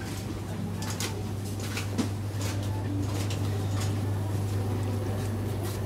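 Supermarket background: a steady low electrical hum with a few faint clicks and rustles.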